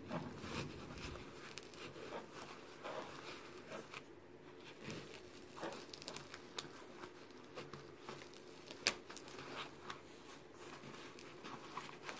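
Faint rustling and scraping of a nylon plate carrier's fabric and webbing being handled, with scattered small clicks and one sharper click about nine seconds in.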